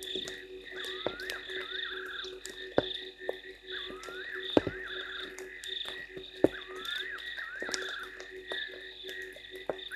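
Night chorus of frogs: a steady pulsing high trill and a low steady note, with repeated rising calls that each end in a short trill. Several sharp taps stand out above the chorus.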